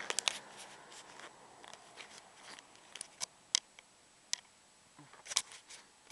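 Irregular sharp clicks and ticks from a handheld camera being handled as it pans, over faint background hiss.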